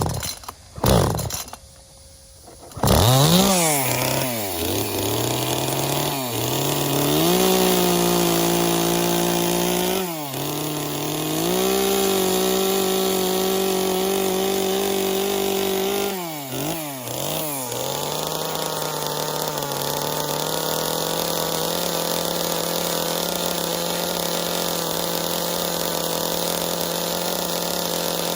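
Chainsaw pulled and started, catching about three seconds in. It is then revved up and down several times and held at a steady high speed, as it is when cutting into a wooden log for a carving.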